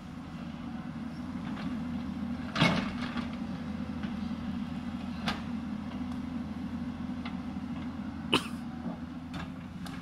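Hyundai 220 crawler excavator's diesel engine running steadily while it digs and swings, with a few sharp knocks from the bucket and boom working; the loudest comes about two and a half seconds in, and two more about five and eight seconds in.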